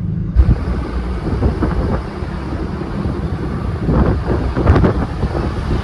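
Truck driving over rough off-road desert ground: a loud rumble with knocks and jolts, a sharp jolt about half a second in and more around four to five seconds in, with wind buffeting the microphone.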